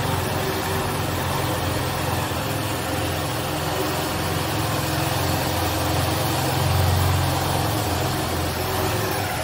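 Small motorcycle engine running at low speed while riding, a steady low note that swells a little about seven seconds in.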